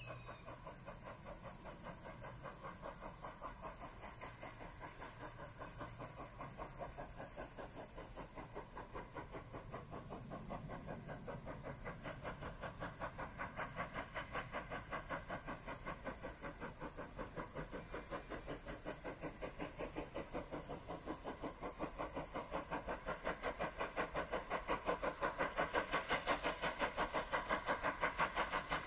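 GWR pannier tank steam locomotive working a train, its exhaust giving rapid, even chuffs that grow steadily louder as it approaches.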